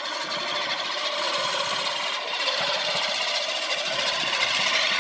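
Walk-behind lawn mower running steadily.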